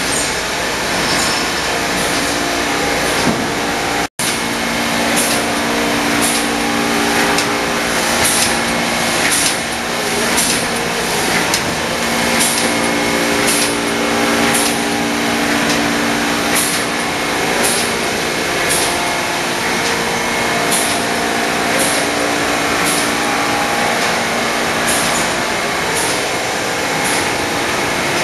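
TYM1050Y hot foil stamping and die-cutting press running in production: a steady mechanical clatter with a sharp clack about once a second as it strikes each sheet. The sound cuts out for an instant about four seconds in.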